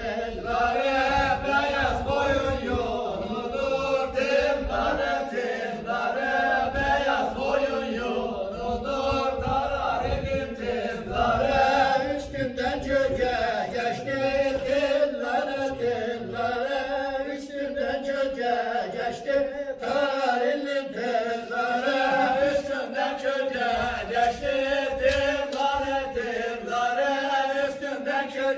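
A group of men singing a Bayburt ağız barı in unison with no instruments: a drawn-out, chant-like dance tune with the voices carrying the melody themselves. Short, sharp knocks from the dancers' steps recur throughout.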